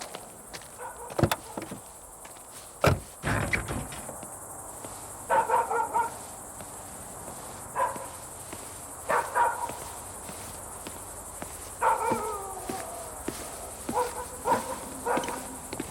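A dog barking about five times in short, spaced-out barks, after two sharp knocks in the first few seconds.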